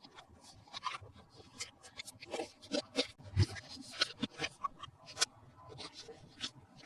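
Hands handling a plastic toy and its packaging: irregular small clicks, taps and rubbing, with a heavier tap about three and a half seconds in.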